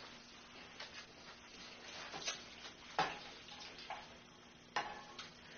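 Metal spoon scraping and clinking in a saucepan of mac and cheese: a few separate short taps, the loudest about three seconds in.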